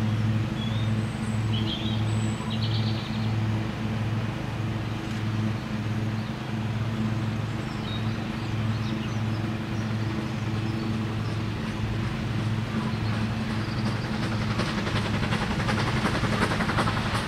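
A steady low droning hum with a slow pulse under a GWR 4575-class 'Small Prairie' 2-6-2T steam tank locomotive approaching with its train; the locomotive's rapid exhaust beats grow louder near the end. A few bird chirps early on.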